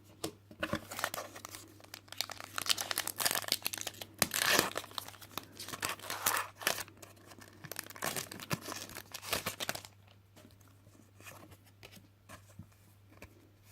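Foil Pokémon trading-card booster pack wrapper being torn open and crinkled, a dense run of crackling for about ten seconds, then only a few faint clicks.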